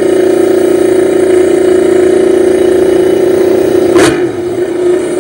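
MotoGP racing motorcycle engines running at a high, steady idle, a loud constant drone. A single sharp crack about four seconds in, after which the drone is slightly quieter.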